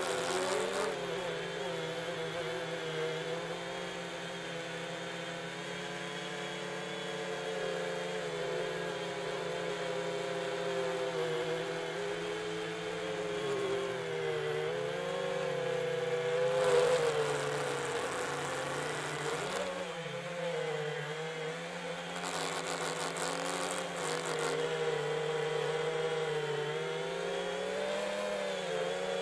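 FPV quadcopter's electric motors and propellers whining, the pitch rising and falling as the throttle changes. Two stretches of louder rushing noise come in the second half, a few seconds apart.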